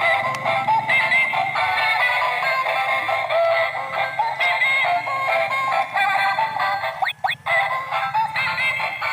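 Electronic jingle with a synthesized singing voice played by the egg-laying toy hen's built-in music, with a short break about seven seconds in.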